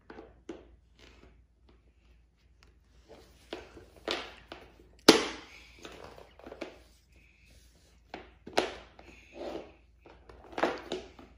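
Small plastic interlocking building pieces clicking and clattering as they are handled, picked from a wooden bowl and pressed together on a wooden floor, in scattered taps with a sharp clack about five seconds in.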